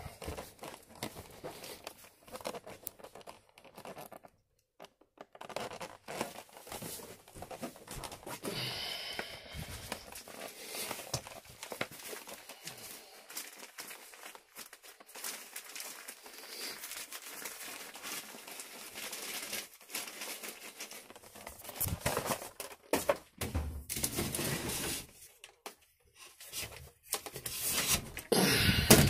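Rustling and crinkling of trash and debris, with irregular light knocks, a brief high squeak about nine seconds in, and louder clattering near the end.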